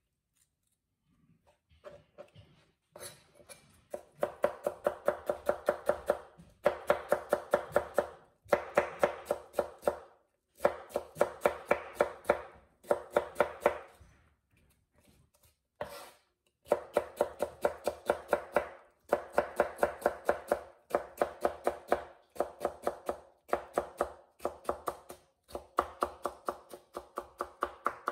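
Kitchen knife rapidly cutting raw potato slices into thin strips on a plastic cutting board. It starts with a few scattered taps, then runs of quick, even strokes, about five a second, come in spells of a couple of seconds with short pauses between.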